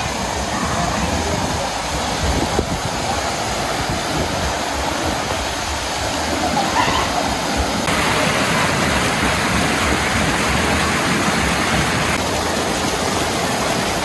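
Water rushing steadily over the low rock ledges of a small stream waterfall, a little louder from about eight seconds in, close beside the falling water.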